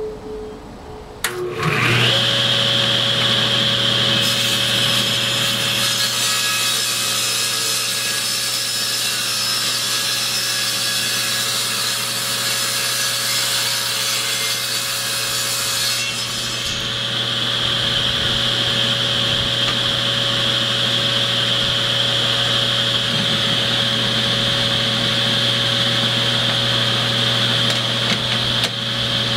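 Restored Rockwell Model 9 contractor table saw, on new bearings, switched on about a second and a half in and running up to a steady hum. It rips a board from about 4 to 16 seconds, adding a hissing cut over the motor and blade, then spins free.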